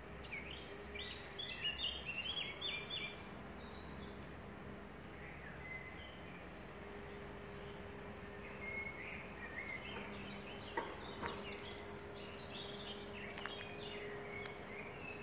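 Songbirds singing outdoors: a run of quick, stepped chirping phrases in the first few seconds, then more song from about nine seconds in, over a faint steady hum.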